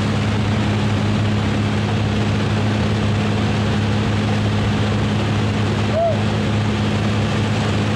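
Steady drone of a propeller-driven skydiving jump plane's engine, heard from inside the cabin: a constant low hum at one pitch under a rushing noise.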